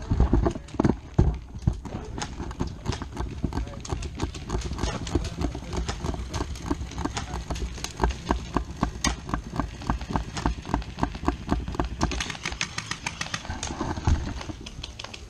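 Airsoft gunfire: a steady run of rapid sharp clicks and pops, several a second, with heavier thumps in the first second or so.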